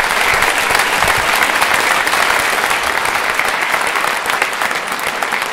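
A large audience applauding: dense, steady hand clapping from a full hall, beginning to die down near the end.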